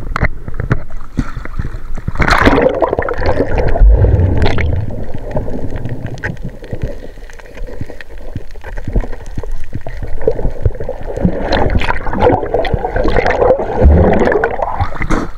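Sea water gurgling and sloshing close to the microphone, swelling twice.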